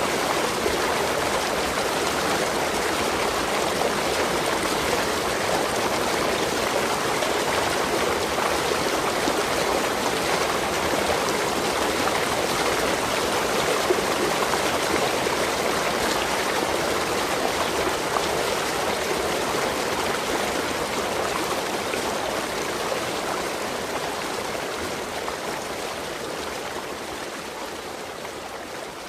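Waterfall: a steady rush of falling water, slowly fading out over the last several seconds.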